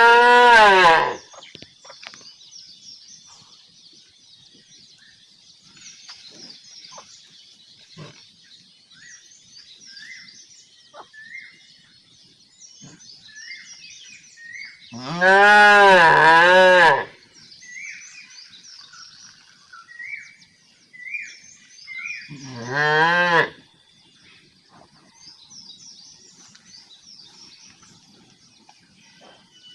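Cow mooing three times: the tail of one moo about a second in, a long moo of about two seconds midway, and a shorter moo a few seconds after it. Birds chirp faintly between the calls.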